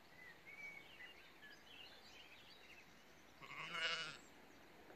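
A sheep bleats once, a single wavering bleat lasting under a second, about three and a half seconds in.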